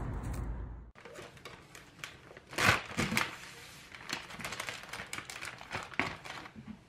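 A steady rumbling noise cuts off abruptly about a second in; then crinkling and rustling with many scattered light clicks and taps, loudest a little under three seconds in, as of things being handled in a small room.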